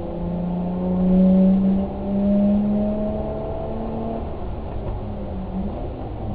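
A vehicle engine running under load, its pitch slowly climbing for about four seconds and then easing back to a steadier drone.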